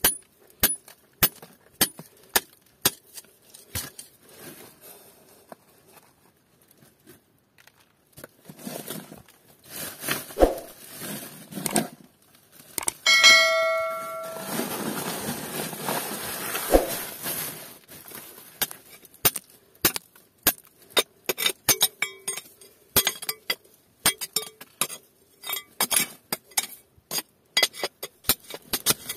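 A ribbed steel bar tapping and chipping at a quartz ore vein in rock, with sharp metallic clinks about two a second. In the middle the taps give way to a stretch of rustling scrape with one ringing metallic clang, and then quick tapping resumes.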